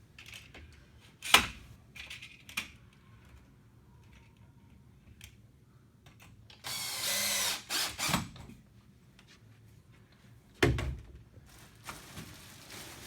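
A power drill runs in one short burst of about a second, with a couple of brief follow-up bursts, among sharp clicks and knocks of tools and rod hardware being handled.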